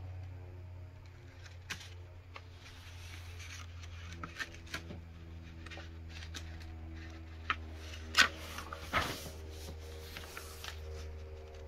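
Paper pages of an instruction booklet being handled and turned: small crackles, then a sharp rustle and swish about eight seconds in as a page is flipped. A steady low hum runs underneath.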